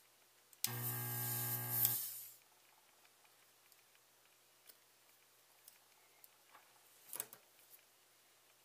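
Handheld vacuum desoldering gun's pump running for about a second and a half, an even buzz with a hiss of air as it sucks melted solder off a capacitor's joints on the circuit board. A few small clicks of handling the board follow, a short cluster near the end.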